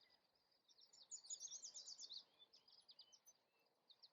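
Faint bird song: quick runs of short, high chirps and trills, busiest about a second in and again near the end.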